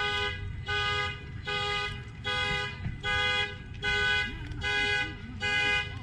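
A car horn honking over and over in an even rhythm, roughly once every three-quarters of a second, as a sounding car alarm does.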